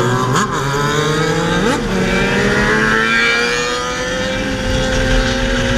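Motorcycle engine accelerating, its pitch breaking at two quick gear changes in the first two seconds, then climbing slowly through a long pull in a higher gear.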